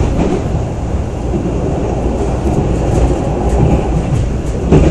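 Passenger train running at speed, heard from inside the carriage: a steady low rumble of wheels on the rails with occasional knocks from the track, the loudest one near the end.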